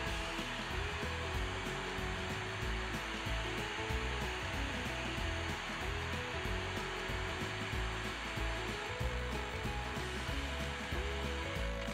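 Steady FM static hiss and buzz from a Tecsun portable radio tuned to 81.5 MHz, with faint wavering tones underneath. The static is the sign that the receiver is getting no carrier from the homemade transmitter; it stops once the transmitter's circuit is completed.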